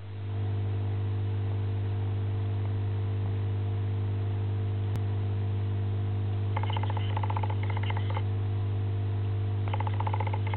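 Steady low hum with evenly spaced overtones. A little past halfway and again near the end, a spell of rapid, high-pitched chirping lasting about a second and a half.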